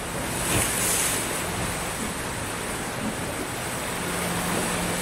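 Sea surf: small waves breaking and washing up the shore, a steady rushing hiss with one wave swelling up about a second in.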